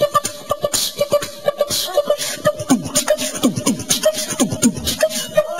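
A boy beatboxing into a microphone, imitating drums with his voice: a fast, uneven rhythm of clicks and pops over a steady held tone, with repeated falling pitch swoops in the second half.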